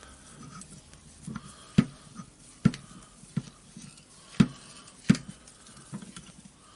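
Sharp metal clicks and light knocks at irregular intervals, roughly one a second, from a screw being turned to push a ball bearing out of an orbital sander's armature housing.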